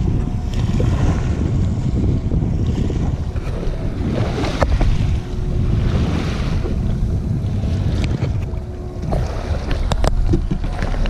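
Boat running on open water: a steady low rumble of motor and wind buffeting the microphone, with a wash of water rushing and splashing past the hull about halfway through. A few sharp clicks come near the end.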